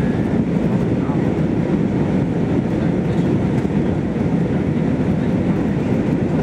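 Steady, low cabin noise of an easyJet Airbus A319 in flight, heard from a window seat: the drone of the jet engines and the rush of air over the fuselage, with no change in pitch or level.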